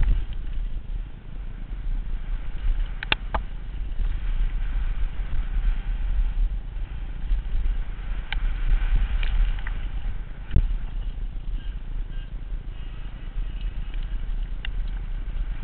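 Mountain bike riding fast down a loose dirt and gravel trail, heard from a camera on the rider: heavy wind rumble on the microphone over the crunch of tyres on stones, with sharp rattles and knocks from the bike over bumps, the loudest about three and ten and a half seconds in.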